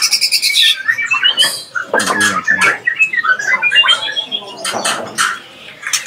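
Songbirds calling: a busy string of short whistled chirps, some sliding up or down, with harsh rasping calls mixed in.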